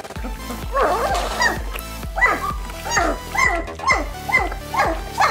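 Young German Shepherd puppies, about three weeks old, whining and yipping over and over in short, high calls that fall in pitch, roughly two a second, over background music with a steady beat.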